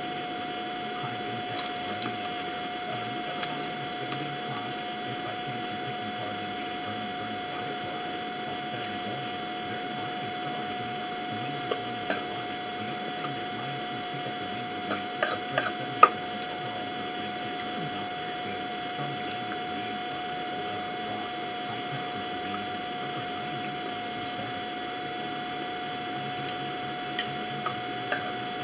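A steady electrical hum with a constant tone and hiss, broken a few times by light clicks of spoons against bowls; the sharpest click comes a little past halfway.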